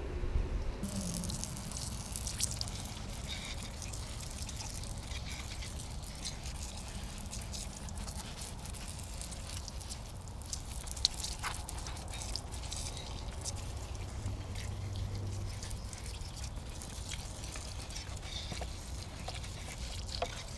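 Water dripping and trickling off a dirt bike during washing, with scattered light taps and clicks.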